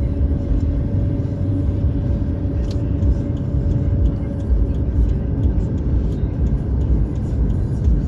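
Steady low rumble of a car's engine and tyres heard from inside the cabin while driving, with a faint steady hum that fades out about halfway through and a few light rattles.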